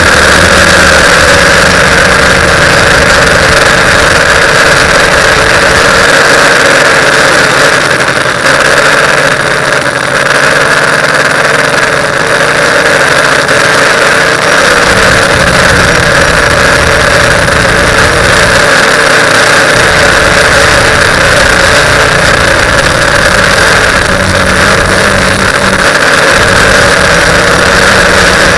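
TBS Discovery quadcopter's electric motors and propellers making a loud, steady buzz in flight.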